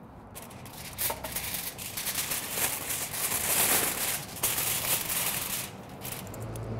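Aluminium foil crinkling and crackling as it is folded and pressed tightly around a smoked pork butt by hand. The crackle starts about half a second in, is loudest around the middle and dies away near the end.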